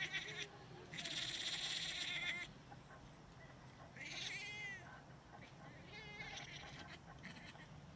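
A female cat being mounted during mating, yowling. There is a long rasping cry about a second in, then a clearer call that rises and falls near the middle, and fainter short calls near the end.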